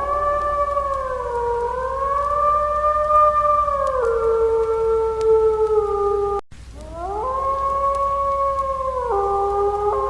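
Wolf howling: a long, steady howl that rises at its start and holds, with pitch steps along the way. It cuts off suddenly about six and a half seconds in, and a second howl rises and holds through the end.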